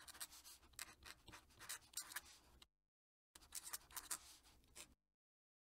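Faint scratching of a fountain pen nib drawn across paper in quick handwriting strokes. It cuts out for about half a second midway, resumes, and stops about a second before the end.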